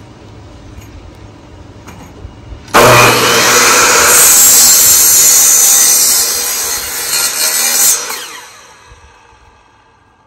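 Miter saw starting up suddenly a little under a third of the way in and cutting through a wooden stair-tread plank for about five seconds, then the blade winding down and fading out.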